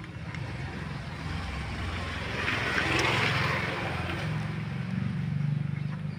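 A vehicle engine throbbing low and steady, with a rush of noise that swells to a peak about three seconds in and fades again, like a vehicle passing by.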